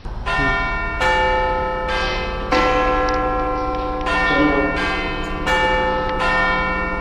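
Mobile phone ringing with a chiming bell ringtone: a new bell-like tone struck about every second or so, each ringing on into the next.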